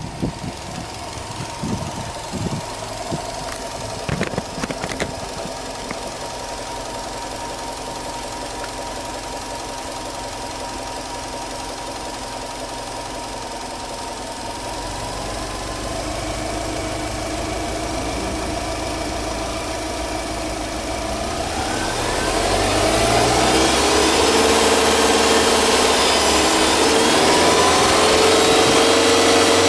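Subaru Legacy Touring Wagon 2.0GT spec B's turbocharged EJ20 flat-four (boxer) engine idling steadily, heard from the front with the bonnet open. Some two-thirds of the way through it gets louder and stays louder.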